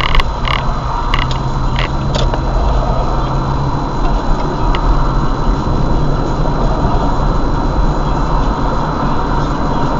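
Car driving, heard from inside the cabin: steady engine and tyre-on-road noise with a low hum. A few sharp clicks come in the first two seconds.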